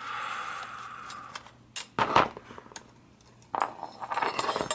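Small steel toe-clip screw being turned out with a flat-tip screwdriver against a nut held in vice grips: a scraping for about a second, then sharp metal clicks and clinks as the screw, nut and washer come free and are handled, with a cluster of clicks near the end.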